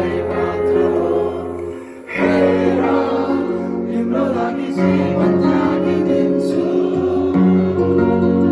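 Live band music with a group of voices singing, over a steady bass; the sound drops briefly about two seconds in, then comes back full.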